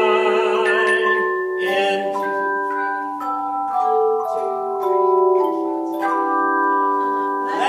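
Tone chimes ringing in chords, the notes held and overlapping, with a new chord struck about every half second to second.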